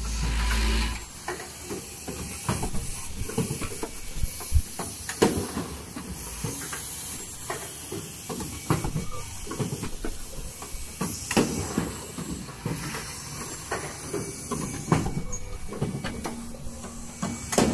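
Automatic N95 cup mask machine running: pneumatic cylinders give short hisses of released air every few seconds, over a constant irregular clicking and clacking from its stations and conveyors.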